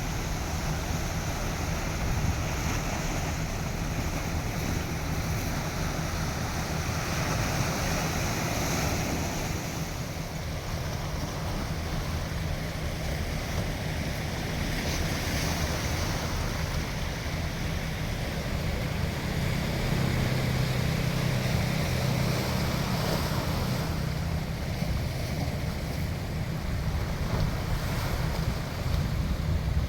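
Sea waves washing in with a steady rushing that swells and eases slowly, over a low rumble of wind on the microphone.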